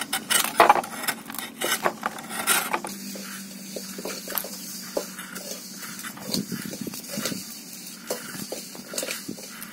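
A knife scraping and chopping a block of jaggery into thin shavings on a wooden board, with sharp, loud strokes in the first few seconds, then softer strokes and light clicks. A faint steady hum runs underneath.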